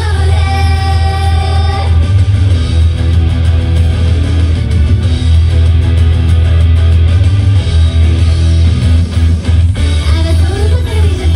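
Live rock band playing loud with singing and electric guitar over a heavy bass. A long held note opens the passage before the full band carries on.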